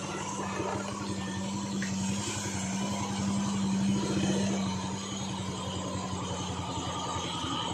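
Vehicle engine running steadily, a little louder in the middle and easing off about five seconds in.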